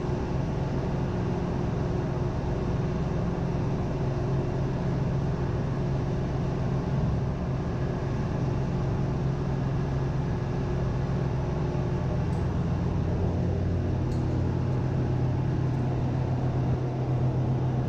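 Steady low hum of ship's engine-room machinery heard inside the main engine crankcase, its pitch shifting a little about twelve seconds in.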